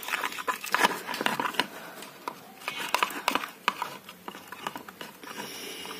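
Metal spoon stirring and scraping a sticky shampoo-and-glue slime mixture in a plastic tub, with irregular clicks and scrapes as the mix thickens into slime.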